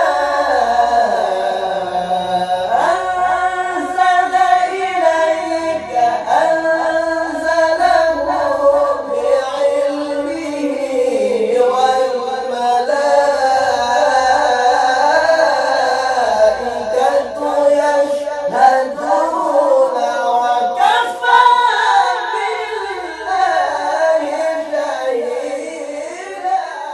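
Two men's voices singing together without accompaniment, in the melismatic style of Quran recitation (tilawah), with long held phrases full of ornamented, wavering turns.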